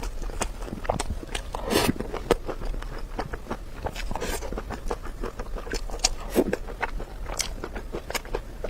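Close-miked eating: wet chewing and mouth smacks, a quick irregular run of small clicks, with a couple of longer breathy bursts about two and four seconds in.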